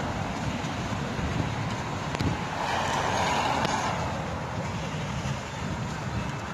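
Road traffic noise: a vehicle passes, swelling and fading about three seconds in, over a gusty low rumble of wind on the microphone.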